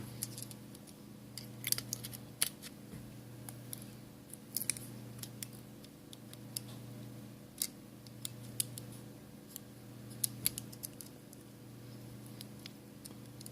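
Small, sharp irregular clicks and ticks of hand tools and phone parts being handled during an iPhone 5s display replacement, some in quick pairs, over a faint steady low hum.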